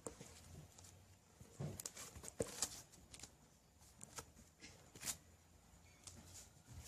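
Foam clay slime made from EVA clay and glue being squeezed and stretched by hand, giving faint, irregular sticky clicks and small pops.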